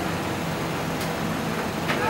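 Steady mechanical background hum with a low drone, and a single faint click about a second in.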